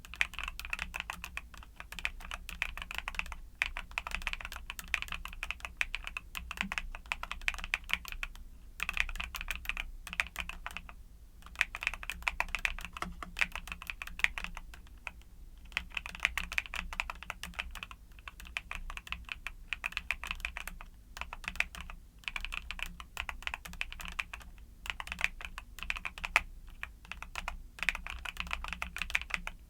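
Fast typing on a YUNZII mechanical keyboard with Cocoa Cream switches: a dense stream of key clacks in runs, broken by brief pauses every few seconds.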